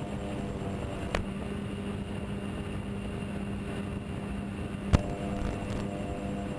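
Twinstar RC model plane's twin electric motors and propellers running steadily in flight, a constant hum mixed with rushing air. Two sharp clicks, one about a second in and a louder one near the five-second mark.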